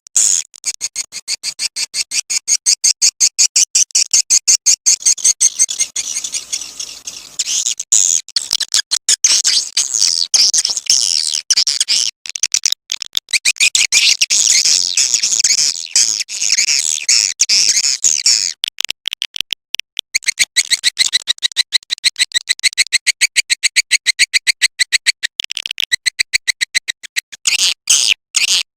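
Recorded swiftlet calls: fast, high-pitched twittering chirps in dense trains, many a second, with a few brief breaks. This is a 'suara panggil' lure call, played to draw swiftlets into a bird house.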